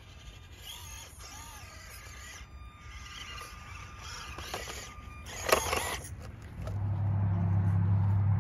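Small-scale RC rock crawler tipping over and tumbling off a wooden beam, with one sharp clatter about halfway through. A low steady hum sets in near the end.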